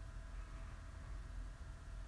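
Quiet pause between a sleeping woman's snores: only a low steady rumble and faint hum of room noise, with no snore or breath sound.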